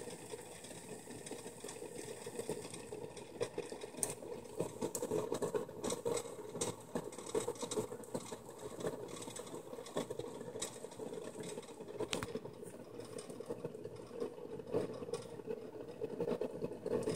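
Pot of water with eggs in it coming up to a boil on the stove: steady bubbling and crackling with frequent small ticks and pops, short of a hard boil.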